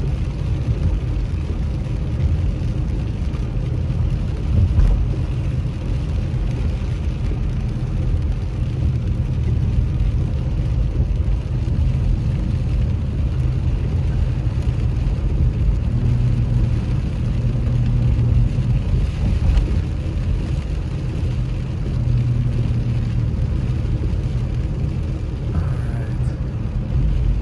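Car driving on a rain-soaked road, heard from inside the cabin: a steady low rumble of engine and tyres on wet pavement.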